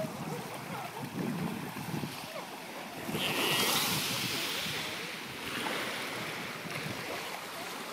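Small waves washing and lapping on a sandy shore among rocks, with some wind on the microphone; the wash swells louder and hissier for a couple of seconds about three seconds in.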